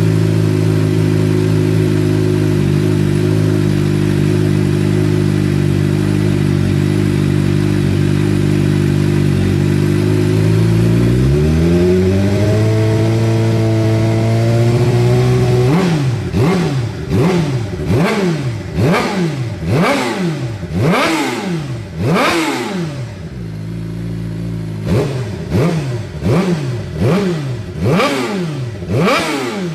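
Suzuki GSX-R600's inline-four engine running through an M4 exhaust muffler: idling steadily, then the revs climb and hold higher at about eleven seconds. From about the middle on, the throttle is blipped over and over, about one rev a second, with a short spell back at idle partway through.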